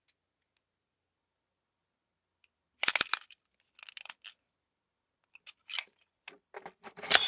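Plastic clicks and rattles of a toy Full Bottle being handled, then a run of clicks ending in one sharp, loud click as it is pushed into the slot of a DX Build Driver belt.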